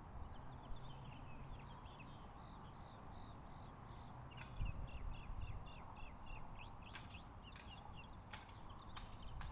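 A bird chirping outdoors, a rapid run of short high chirps. Several sharp clicks come near the end, with low wind rumble underneath.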